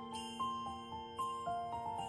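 Background music: a simple melody of short stepping notes over steady held tones.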